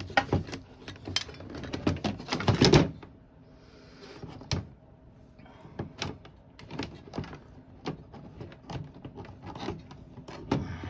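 Aluminum window frame parts being handled and turned over: a run of clattering knocks in the first three seconds, then scattered light clicks and taps.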